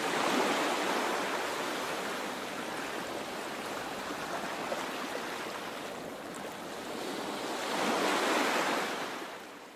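Ocean surf washing in: a steady rush of waves that swells at the start and again about eight seconds in, then fades away.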